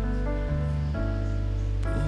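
Slow ballad backing track playing between sung lines, with no voice: sustained chords over a steady bass, the chord changing about half a second and again about a second in.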